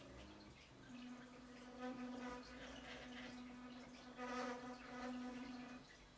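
Stepper motors of a 3D-printed six-axis robot arm running as the arm moves, a faint steady buzzing whine that starts about a second in, swells louder a few times and stops shortly before the end.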